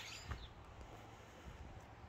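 Quiet countryside ambience: a brief bird chirp right at the start, then only a faint low rumble.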